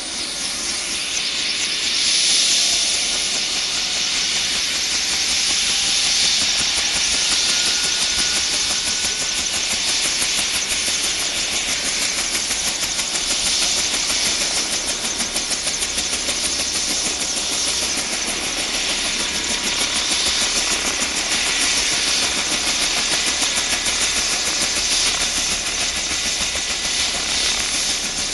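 Bell 205A-1 helicopter running on the ground with its Lycoming T53 turboshaft engine and rotors turning: a steady, loud turbine hiss with a fast, even pulse from the spinning rotor.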